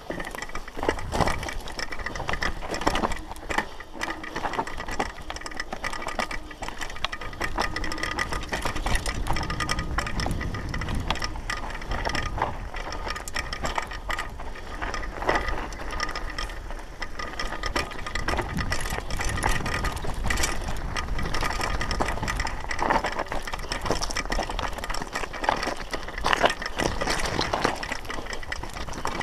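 Downhill mountain bike clattering down a rocky dirt trail: constant rattling and knocking of the bike over stones and ruts, with a low rumble and a steady high buzz running through it.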